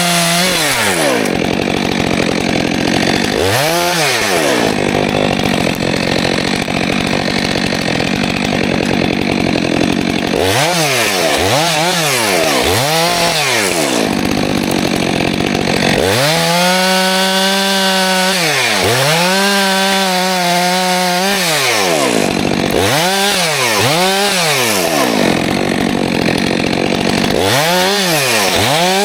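Stihl 462 C two-stroke chainsaw fitted with an Egan Straight Shot aftermarket muffler, revving in a string of short throttle blips and, for several seconds in the middle, held at high revs with the pitch sagging and recovering, as in a cut through wood.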